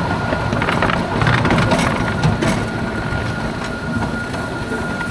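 Romulus-type miniature steam locomotive running with its passenger train, the wheels clicking over the rail joints, with a steady thin high whine.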